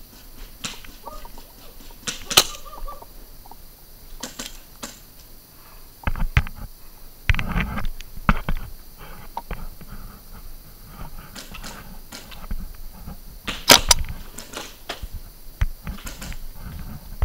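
Sporadic paintball fire: single sharp cracks scattered through, the two loudest about two seconds in and about four seconds before the end, with a few low thumps in between.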